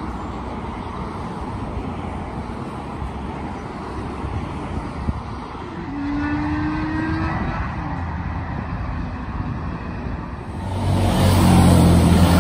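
Trains passing by rail lines. First a distant train rumble with wind and road traffic, then a change of scene about six seconds in. Near the end, a diesel multiple unit passes close with a loud low engine drone.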